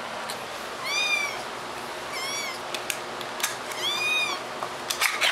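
Kitten mewing three times, high-pitched calls that each rise and fall, with a few short clicks between them: the cries of a kitten guarding her food.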